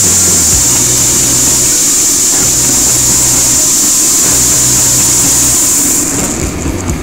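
Motorcycle engine running while riding along the road, under a loud steady rush of wind noise that drops away about six seconds in.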